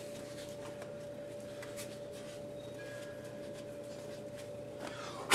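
Faint rustling and rubbing of a cloth rag wiping the plastic brake master cylinder reservoir clean, over a steady low hum. A single sharp knock near the end.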